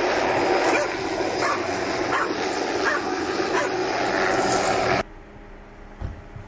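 Steady noise of a light helicopter flying overhead, with a dog barking about once every second. The sound drops away suddenly about five seconds in, and a single low thump follows near the end.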